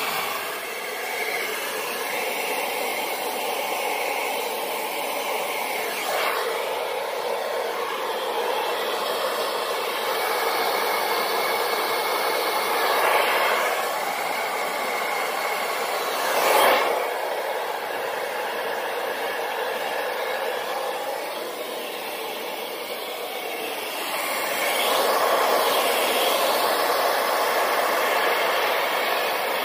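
Hair dryer running steadily, blowing wet acrylic paint across a canvas in a Dutch pour. Its loudness shifts as it is moved about, with two brief swells about halfway through and a louder stretch near the end.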